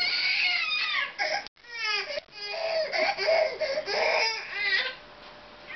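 Baby crying in a series of high-pitched, wavering wails, with a momentary break about a second and a half in and a quieter stretch near the end.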